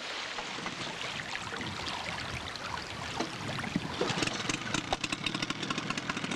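A vehicle's engine running, with many sharp crackles and clicks growing busier from about halfway through.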